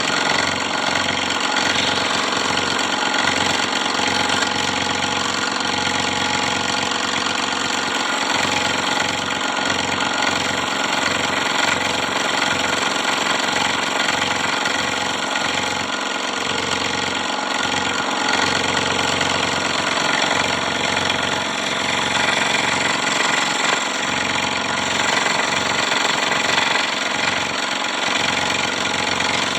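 Scroll saw running steadily, its reciprocating blade cutting through wood with a fast, even chatter.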